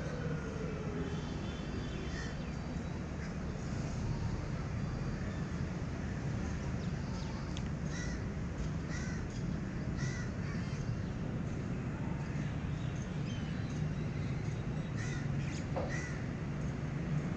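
Birds calling in the background: short calls repeated in small groups, mostly in the second half, over a steady low background rumble.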